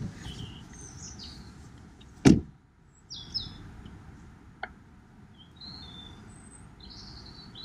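A car door slams shut once, about two seconds in. Afterwards birds chirp in short high calls over faint outdoor background noise.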